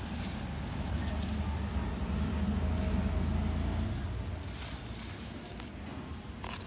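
Dry red dirt clods crunching and crumbling in a hand, heard as faint scattered crackles. Under them runs a low rumble that swells in the middle and fades after about four seconds.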